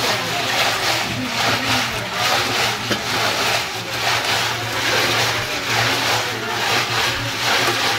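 Metal pot of milk being spun by hand in a tub of ice, grinding and rasping against the ice chunks in a steady rhythm of nearly two strokes a second as the milk freezes into sheer yakh ice cream. A steady low hum runs underneath.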